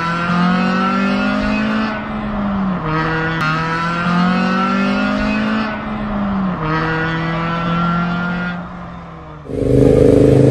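Car engines revving in three rising pulls, each a couple of seconds long, with short dips between them, then a louder engine about nine and a half seconds in.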